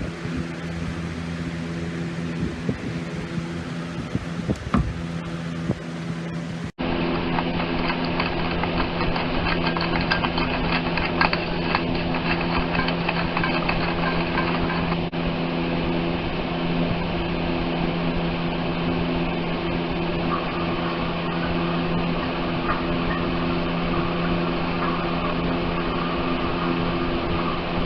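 A steady machine-like whir: rushing air over a low, even hum, like an electric fan. About seven seconds in it cuts for an instant and resumes a little louder and brighter.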